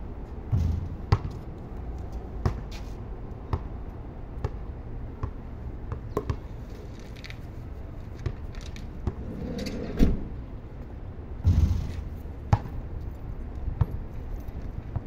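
Basketball bouncing on a concrete court as it is dribbled and shot, heard as irregular single knocks about a second apart, a few of them louder.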